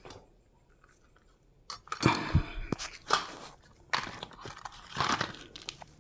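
Irregular crunching, rustling and knocking as tools and materials are handled and moved about by hand, starting about two seconds in.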